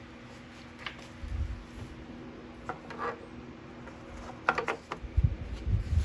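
Several small clicks and knocks of plastic and metal parts being handled and fitted, likely the mower's air filter cover going back onto the engine. There are low thumps near the middle and end, over a steady low hum.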